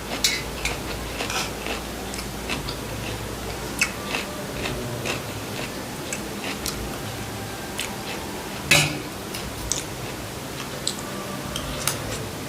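A person chewing and eating fried rice with noodles close to the microphone: scattered soft mouth and food clicks, with one louder click about nine seconds in.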